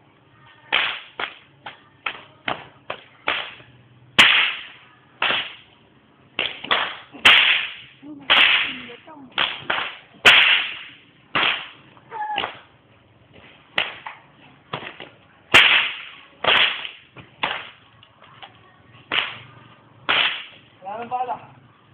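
A whip being cracked again and again: an irregular series of sharp cracks, sometimes several a second, with a few much louder than the rest.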